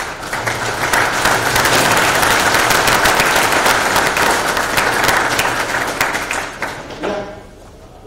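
Audience applauding, building over the first second or two, holding, then dying away about seven seconds in.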